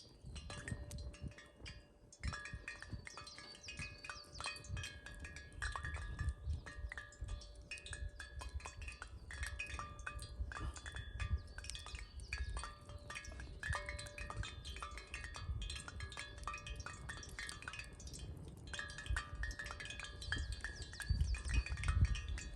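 Light metallic tinkling: many small chime-like notes ringing on and off, over a low rumble.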